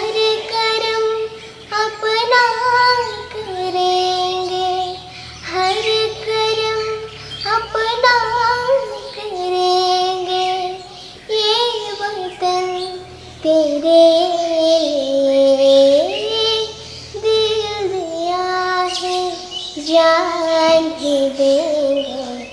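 A young girl singing a song solo, in phrases of long held notes with short breaks for breath between them.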